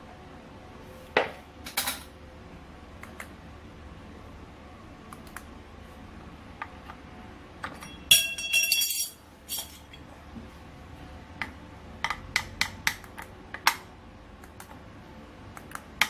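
Scattered sharp metallic clicks and taps as thin cutouts and a remote are handled against a metal licence plate, with a longer clattering, ringing rattle about eight seconds in and a quick run of clicks a few seconds later.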